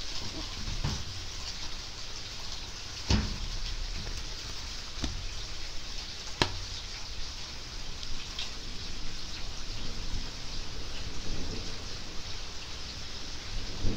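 Steady rain falling, with a few sharp taps on top, the loudest about three and six seconds in.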